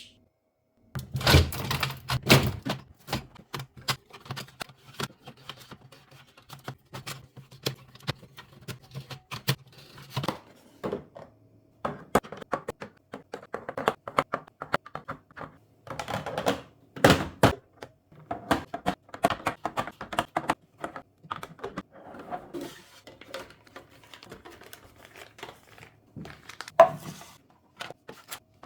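Food containers and packaging being handled and set onto fridge shelves: a run of knocks, clacks and thunks with some plastic crinkling, heaviest about a second in, around ten seconds, and again in the middle and near the end.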